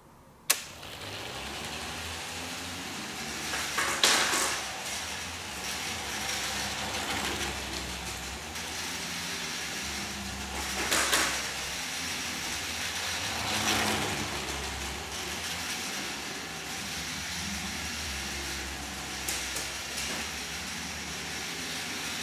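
LEGO RC car with gimbal brushless motors and a LEGO gear train driving on a wooden floor: a steady motor and gear whir with rolling wheels, growing louder in a few surges as it speeds up or turns. A sharp click sounds about half a second in.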